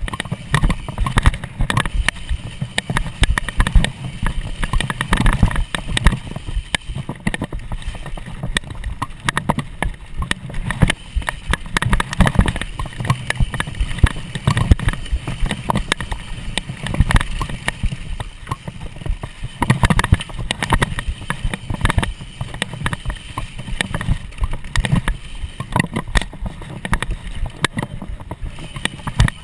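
Mountain bike ridden fast over dirt singletrack: a continuous dense rattling and knocking of the bike over the rough trail, with wind rumbling on the microphone.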